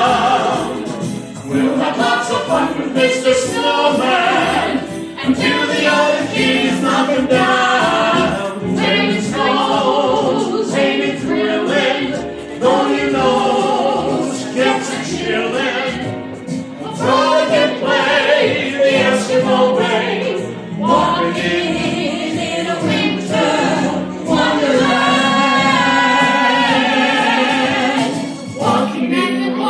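A small group of men's and women's voices singing a Christmas song together through handheld microphones, with music behind them.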